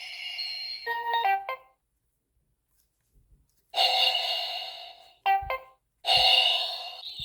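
Electronic ringtone-like chimes: a ringing tone fades out, then a short run of quick stepped beeps. After a gap of about two seconds, a second chime fades out, another quick beep run plays, and a third chime starts near the end.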